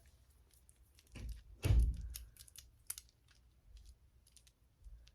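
Plastic fidget toys being handled: scattered light clicks and clacks, with one louder thud about a second and a half in.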